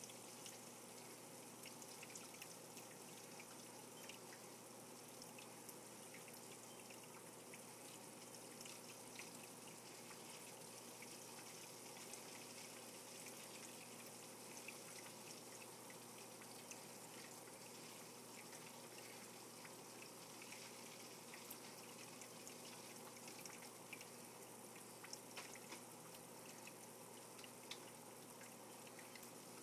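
Faint steady trickling of aquarium water with scattered small drips, over a low steady hum.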